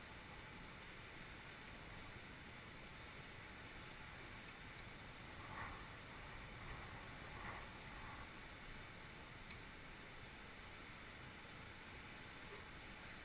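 Near silence: a steady faint hiss, with two brief faint sounds around the middle and a few very light ticks.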